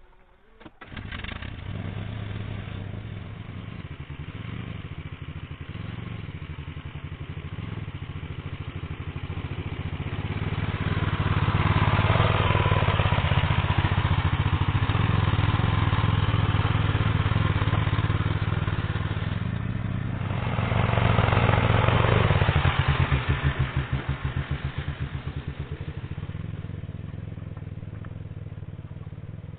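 Two-wheel walking tractor (motocultor) engine running, coming in suddenly about a second in. It gets louder twice, from about ten to nineteen seconds in and again briefly after twenty seconds, then settles back to a steadier run.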